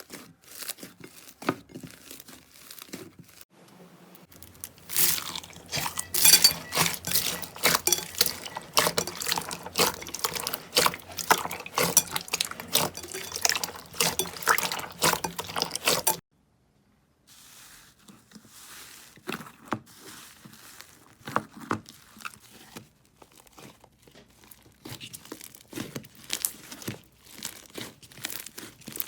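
Slime being squeezed and stretched by hand, giving dense wet crackling and popping. About sixteen seconds in the sound drops out for a second, then goes on as quieter, sparser crackles.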